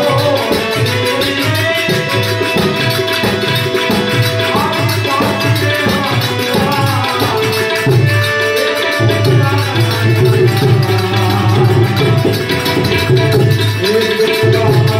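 A live Gujarati bhajan in the santvani style. Harmonium chords and tabla drumming accompany a man singing, with a rattling hand percussion keeping the beat.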